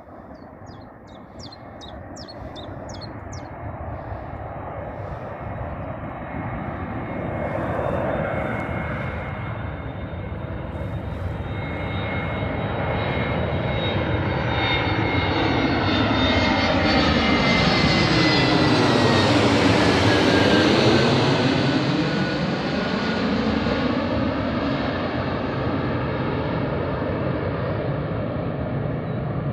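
Airbus A321 jet airliner on final approach, gear down, passing low overhead. Its engine noise grows steadily louder to a peak about twenty seconds in, with a whine that drops in pitch as the plane goes past, then eases off as it flies away.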